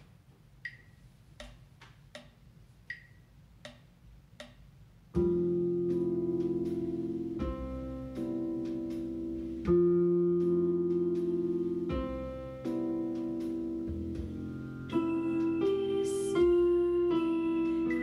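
Digital piano keyboard: faint metronome count-in ticks, about three every two seconds, then about five seconds in slow sustained piano chords begin. The chords change every couple of seconds, and a higher melody line joins near the end.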